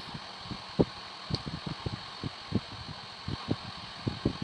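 Soft, irregular low knocks and bumps of hands handling a CAT6 cable and a stripping tool while its outer jacket is stripped, over a steady background hiss.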